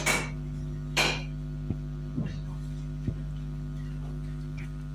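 A steady low electrical hum, with a short rustle about a second in and a few faint clicks after it.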